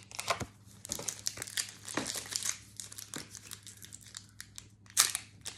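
Foil booster pack wrapper crinkling and tearing as it is opened: a run of small, quick crackles with one louder crackle near the end.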